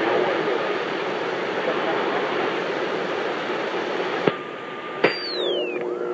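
CB radio receiver hissing with static, faint distant voices buried in the noise. About four seconds in there is a click and a steady beep, then a second click and a falling electronic whistle as a strong station keys up, and another falling tone begins near the end.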